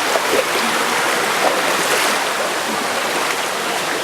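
A river rushing past, a steady wash of flowing water with a strong current.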